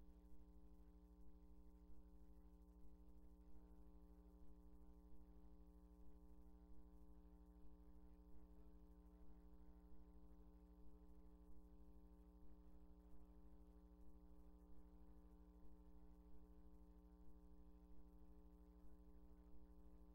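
Near silence with a steady low hum.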